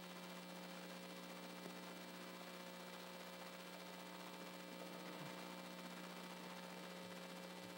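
Low, steady electrical mains hum in the audio feed, with faint room tone and a single light knock about a second and a half in.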